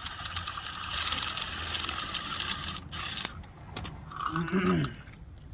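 Drill with a step bit reaming out a tight hole: a rapid grating chatter for about three seconds that then stops. A short pitched vocal sound follows near the end.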